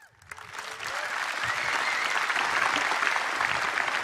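Audience applauding: clapping that swells over the first second into steady applause.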